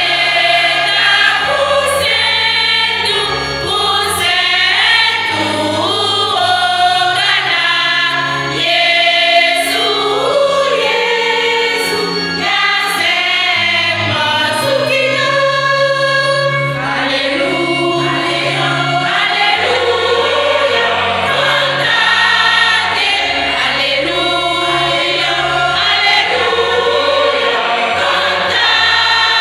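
Church choir singing an upbeat gospel song.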